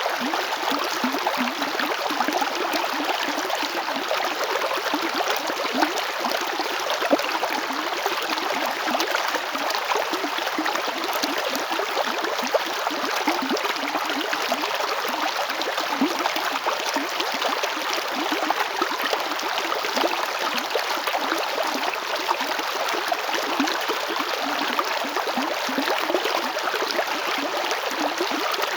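Chalchaní river flowing: steady rushing and gurgling of water over stones, with constant small splashes.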